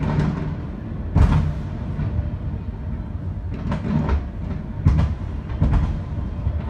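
Aerial fireworks shells bursting in a rapid string of booms, about half a dozen in all, the loudest a little over a second in, over a continuous low rumble of further bursts.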